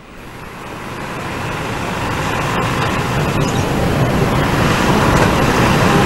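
Road traffic noise: a steady wash of passing motorbikes and other vehicles that fades in and grows louder over the first few seconds.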